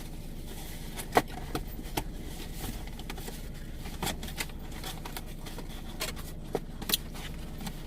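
A few light clicks and taps from handling things inside a car, over a steady low hum of the car's cabin.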